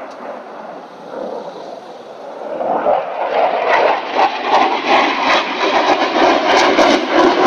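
Fighter jet flying past, its engine noise a rushing sound that grows louder about three seconds in and turns crackly.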